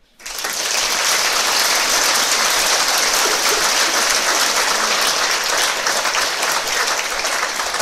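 Audience applauding, loud and steady, breaking out right at the start.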